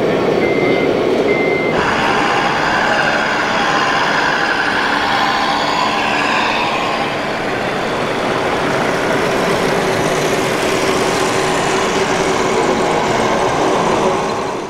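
Repeating high reversing beeps from an RC model truck's sound module, stopping about two seconds in, followed by the steady electronic engine sound of RC model trucks running.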